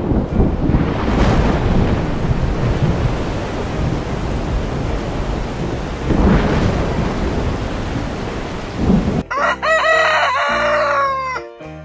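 Thunderstorm sound effect: rain with low rumbling thunder, swelling into two louder claps, about a second in and about six seconds in. About nine seconds in the storm cuts off and a rooster crows.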